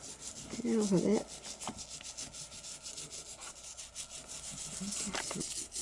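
Toothbrush bristles scrubbing a 1960s plastic doll with light soapy water, in quick repeated back-and-forth strokes.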